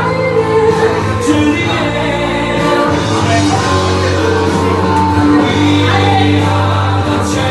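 Loud music with singing over a steady bass line.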